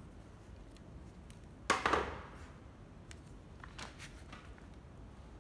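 A sudden clatter about two seconds in as battery chargers are put down on a table, then a few faint clicks of them being handled.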